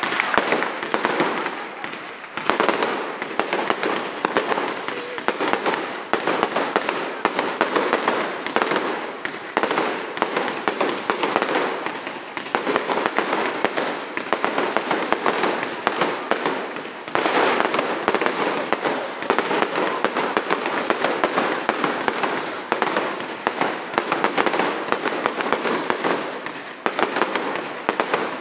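Fireworks display: a dense, continuous barrage of bangs and crackling from aerial shells, swelling and easing every few seconds.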